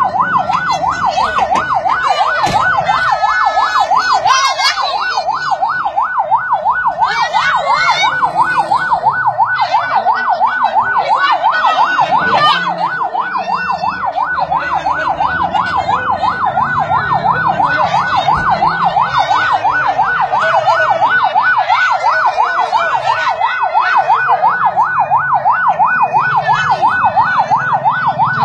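Electronic siren in a fast yelp, its pitch sweeping up and down several times a second, steady and unbroken.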